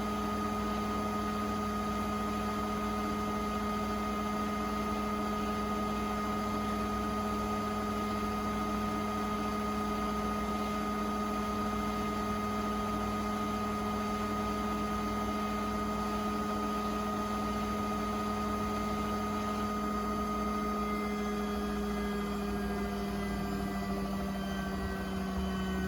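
Beko WTK104121A washing machine spinning at high speed in its rinse cycle, a steady motor whine over a low drum rumble. Near the end the whine starts to fall in pitch as the spin begins to slow.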